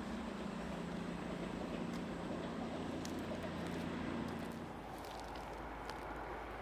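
Diesel train engine running steadily with a low drone. The drone eases off about three-quarters of the way through, and a few faint clicks are heard.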